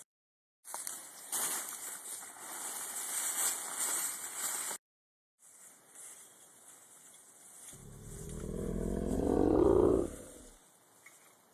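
Rustling and crumpling of a tent being handled and spread over dry fallen leaves, broken twice by brief cuts to silence. About eight seconds in, a low pitched rumble swells for about two seconds and stops abruptly.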